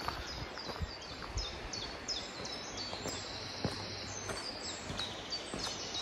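Woodland birdsong: many small birds chirping in quick, high notes, several at once. Footsteps on the path tap faintly now and then.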